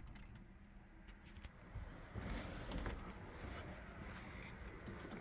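Engine just switched off: a low, quiet lull with a few faint sharp clicks and a light metallic jingle within the first second and a half.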